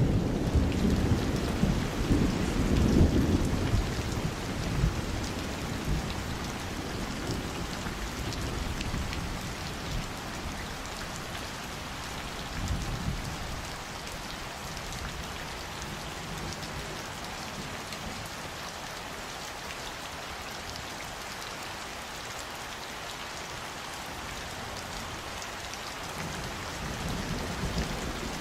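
Steady rain falling, with a low rumble of thunder in the first few seconds that fades away, and fainter rumbles about halfway through and near the end.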